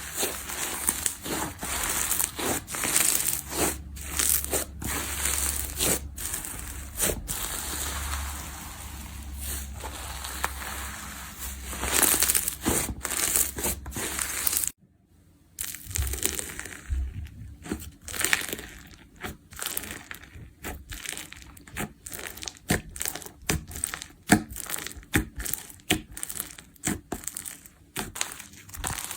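Slime being squeezed and poked by hand, crackling and popping in quick clicks. It cuts off for a moment about halfway, then goes on as sparser, sharper pops.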